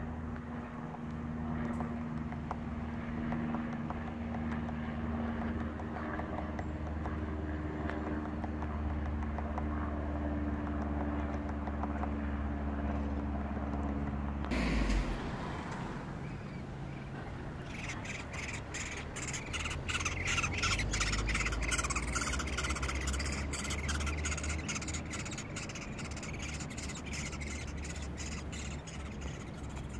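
A steady low hum with a few held tones, ending sharply about fifteen seconds in. A few seconds later a fast, rasping chatter of nestling birds begging from a tree-hole nest starts up and keeps going.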